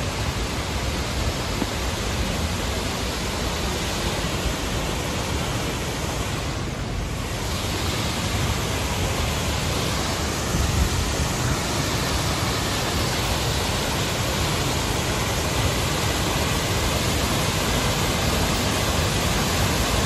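Waterfall pouring over a rock ledge into a plunge pool: a steady, even rush of falling water, briefly dulled in its upper hiss about seven seconds in.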